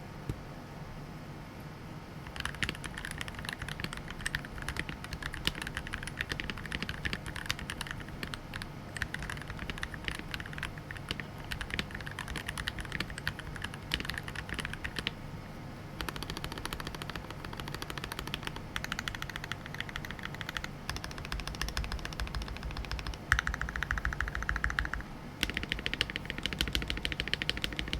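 Fast typing on an NK65 Superuser 65% mechanical keyboard with lubed and filmed Gateron SMD yellow linear switches, lubed and tape-modded stock stabilizers, and a polycarbonate case. A dense, continuous run of keystrokes starts about two seconds in and carries on with a few brief lulls. The board sounds pretty decent after the mods.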